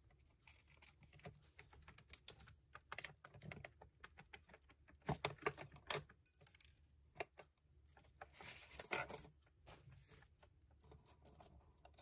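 Irregular small clicks and rattles of a cockatiel pecking at pellets in a ceramic food dish, with a louder, denser spell of rattling about three-quarters of the way through.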